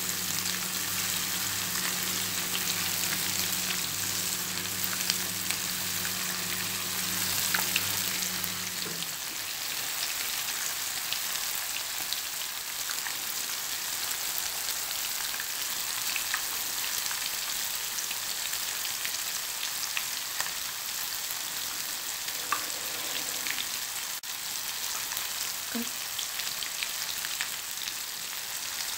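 Masala-coated fish slices shallow-frying in hot oil in a non-stick pan: a steady sizzle with scattered crackles and pops.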